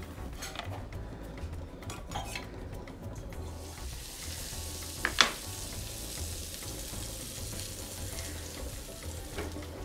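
Butter sizzling on a hot iron tawa, a steady frying hiss. About five seconds in there is one sharp, loud knock.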